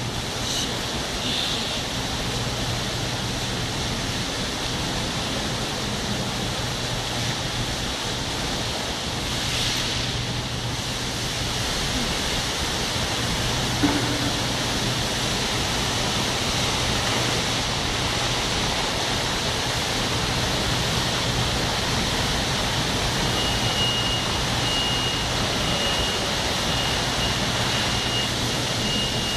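Indoor fountain's water jets splashing into the basin as a steady rush of falling water, growing a little louder about halfway through as the central jet shoots up high.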